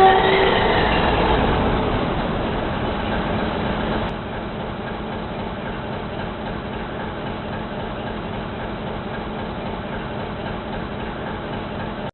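Simulated diesel locomotive engine sound played by the model railway control app, running steadily. It is louder over the first few seconds and drops to a lower steady level about four seconds in.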